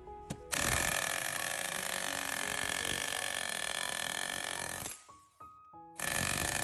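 A power tool running hard against the metal of a water pump being dismantled for its copper: one long continuous run of about four seconds that stops suddenly, then a shorter run starting near the end. Background music plays underneath.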